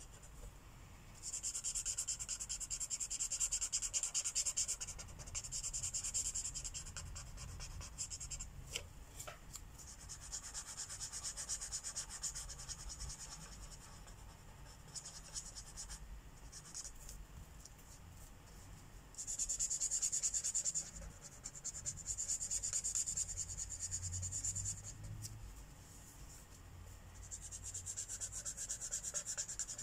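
Marker tip rubbing back and forth on the paper of a colouring book while colouring, in spells of a few seconds with short pauses between them.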